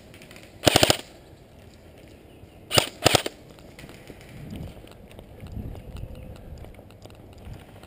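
Airsoft rifle firing in short full-auto bursts, rapid evenly spaced shots: one burst under a second in, then a brief shot and another short burst about three seconds in. After that only faint low rustling.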